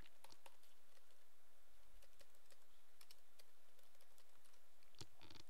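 Computer keyboard typing: faint, irregular key clicks over a low steady hiss.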